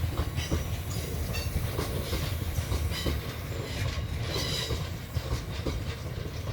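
Freight train wagons rolling past: a steady low rumble with an irregular clatter of wheels knocking over rail joints.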